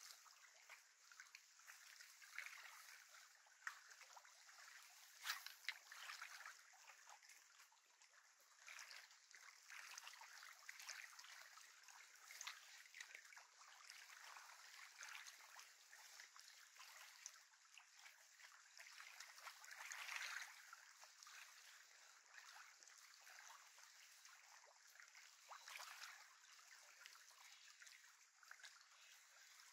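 Faint lapping of small waves at a lakeshore, an uneven watery wash that swells and eases, with a few sharp clicks about five seconds in.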